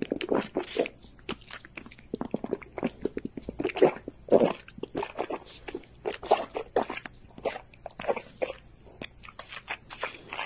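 A litter of American bully puppies suckling at their mother's teats: an irregular run of wet smacking and sucking clicks.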